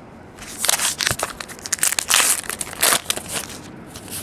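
Wrapper of a 2010 Topps Magic Football card pack crinkling and tearing as it is ripped open by hand. The sound comes in a run of crackling bursts starting about half a second in and is loudest around the middle.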